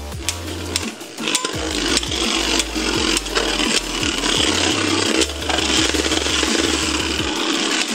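Two Beyblade Burst spinning tops, Inferno Ifrit and Kaiser Kerbeus, whirring and rattling across a clear plastic stadium floor, with many sharp clacks as they strike each other and the stadium wall.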